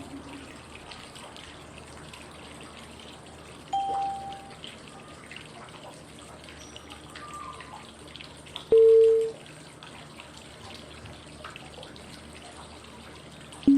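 Steady flowing-water white noise with a short chime-like cue tone every five seconds, pacing the inhale, hold and exhale of 5-5-5 breathing. A higher, softer tone comes about four seconds in and a louder, lower one near nine seconds, with the next tone at the very end.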